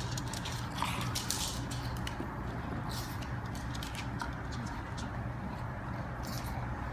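Pugs' paws and claws pattering and clicking on a hardwood floor in scattered, irregular taps, over a steady low hum.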